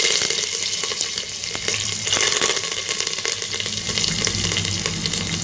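Fresh curry leaves and spices sizzling in hot oil in a pressure cooker, a steady fierce sizzle with scattered crackles and pops: the tempering (phodni) of mustard seeds, cumin and asafoetida just after the curry leaves hit the oil.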